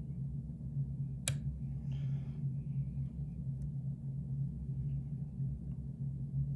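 Lock picking in a pin-tumbler challenge lock: a single sharp click about a second in, then a brief soft scratch, over a steady low hum.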